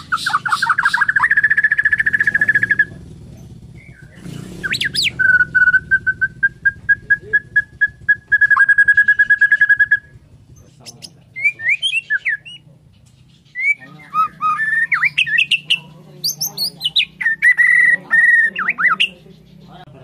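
Male white-rumped shama (murai batu Borneo) singing in bursts: fast trills of repeated notes held on one pitch, then varied whistled phrases that glide up and down, with short pauses between.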